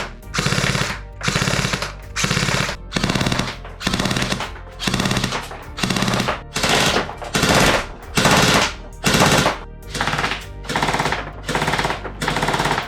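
Airsoft automatic electric pistol firing short full-auto bursts, about one a second, each a fast mechanical rattle of the electric gearbox cycling with brief pauses between.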